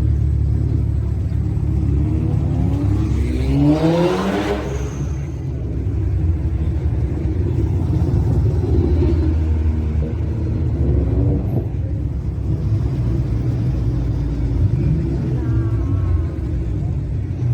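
Modified car's engine and exhaust rumbling at low speed. About three seconds in, one rev climbs in pitch and then drops away. A smaller rise in pitch comes near the end.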